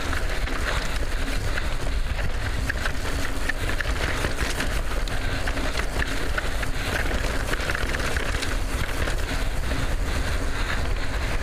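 Wind rumbling on a helmet-mounted microphone as a mountain bike descends a dry dirt singletrack at speed, tyres rolling and the bike rattling with many small clicks and knocks.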